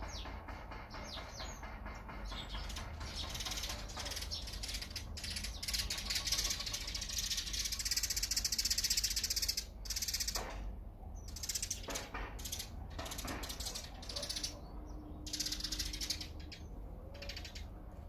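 Small songbirds chirping and chattering in dense high-pitched stretches that break off abruptly several times, over a steady low rumble.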